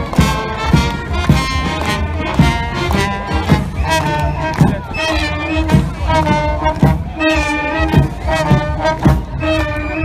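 Brass band playing a tune with trumpets and trombones over a steady beat.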